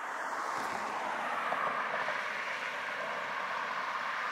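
Car tyres on asphalt: a steady hiss of road noise from traffic on the road, swelling slightly in the first second or so.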